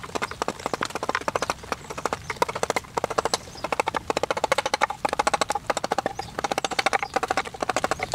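Hand carving gouge cutting into a wooden workpiece, a quick chattering scrape of the edge through the wood in short strokes, about one stroke a second with brief pauses between.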